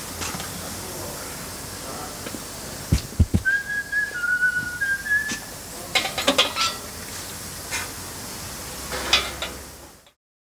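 A short high whistle of a few held, slightly shifting notes, lasting about two seconds, over a steady hiss, with scattered metallic clinks and knocks; the loudest are two thumps just before the whistle. The sound cuts off abruptly near the end.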